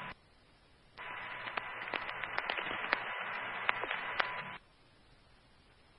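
A two-way fire radio channel keyed open with no voice: about three and a half seconds of thin radio hiss with a faint steady tone and scattered crackling clicks. It starts about a second in and cuts off abruptly as the squelch closes.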